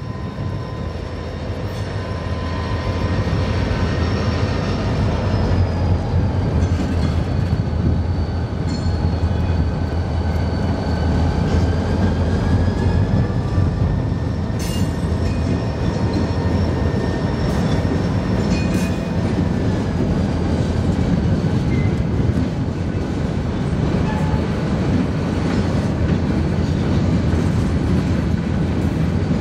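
Freight train passing: the low, steady rumble of diesel locomotives and the wheels of empty covered hopper cars rolling over the rails. Faint high whining tones slowly rise and fall above it.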